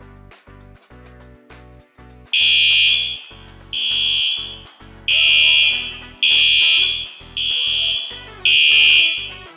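Bicycle anti-theft alarm sounding six loud, high-pitched electronic beeps. Each beep is a steady tone under a second long, and they come about a second apart, starting a couple of seconds in over background music.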